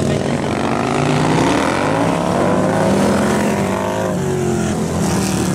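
Several big twin-cylinder bagger touring motorcycles racing together, their engines overlapping, with revs rising and falling as they work through the corners.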